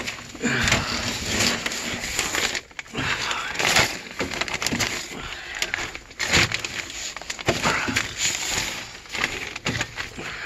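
A person crawling on knee pads across a crawlspace floor: irregular scraping and crunching of knees and hands over dirt and debris, with short pauses between moves.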